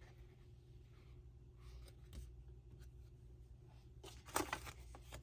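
A handmade cardstock card being handled, with faint paper rustles over a low room hum. About four seconds in come louder rustles and a light tap as the card is laid down on the tabletop.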